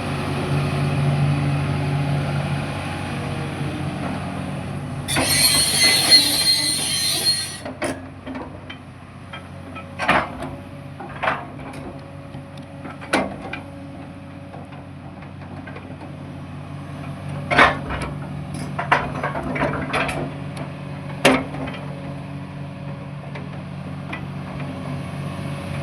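Kobelco SK380 XDLC excavator's diesel engine running steadily, with a loud hiss lasting about two seconds, five seconds in, and then a series of sharp, irregular knocks.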